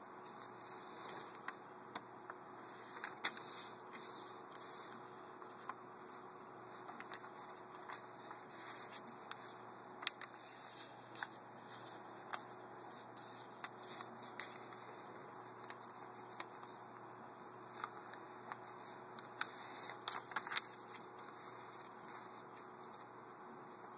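Sheet of paper being folded and creased by hand on a tabletop: soft rustling and scraping with scattered small clicks and taps, the sharpest about ten seconds in, over a steady background hiss.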